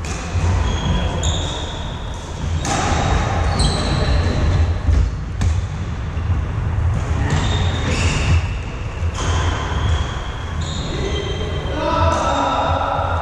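Badminton rally on a wooden indoor court: a sharp racket strike on the shuttlecock every few seconds, with short high squeaks of shoes on the floor, echoing in a large hall over a steady low rumble.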